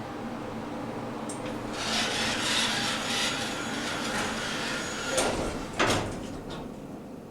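Elevator doors sliding along their track with a scraping, rubbing sound, then a sharp thump a little before the end as they stop.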